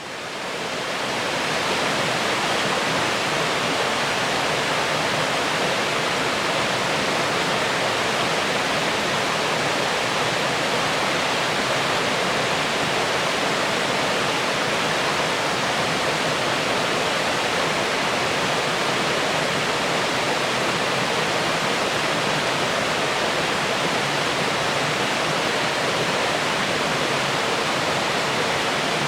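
Hossawa Falls waterfall: a steady, even rush of falling water that fades in over the first second or so and then holds constant.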